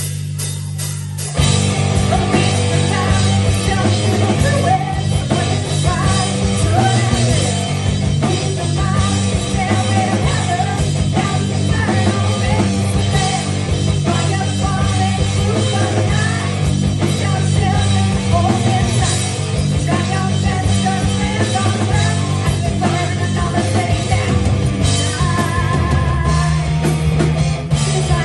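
Live rock band playing loudly: a low note holds for about a second, then drums, distorted electric guitar and a Squier Vintage Modified PJ electric bass come in together, with a woman singing over them.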